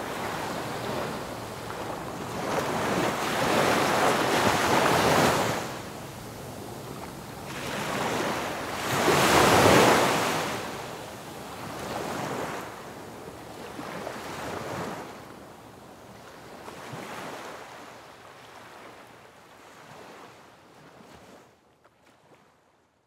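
Surging rush of sea and wind noise, swelling and easing every few seconds, fading out near the end.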